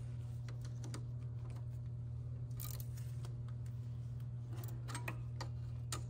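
Scattered light metallic clicks and ticks from a chain riveting tool being fitted and worked on the pins of a timing chain's connecting link, over a steady low hum.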